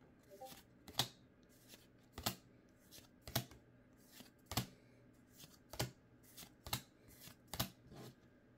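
Pokémon trading cards being flipped one at a time through a hand-held stack from a booster pack, each card moved to the back with a crisp snap about once a second.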